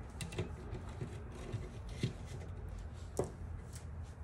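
Hands rubbing and pressing on the plastic housing of a laser printer's fuser unit, with a few small plastic clicks; the sharpest click comes about three seconds in.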